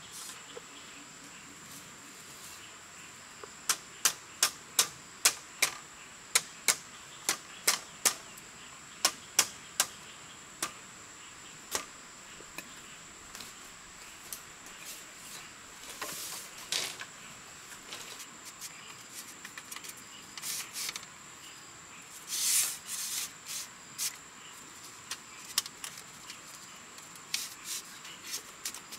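Sharp, light clacks and taps of bamboo poles and split-bamboo slats being handled and fitted onto a bamboo frame, about one or two a second for several seconds, then scattered clatters and rustles. A steady high insect drone sounds behind them.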